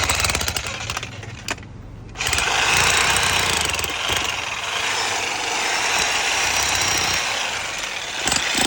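Jackhammer breaking concrete with rapid hammering. It runs loud briefly, eases off about a second in, then hammers steadily again from about two seconds in.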